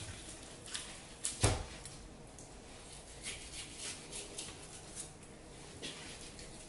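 Knife cutting into a raw bone-in pork shoulder on a plastic cutting board: faint scrapes and soft clicks, with one sharper knock about one and a half seconds in.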